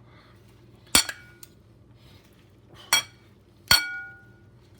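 Two spoons tossing salad in a bowl, clinking against the bowl three times; the last clink rings on briefly.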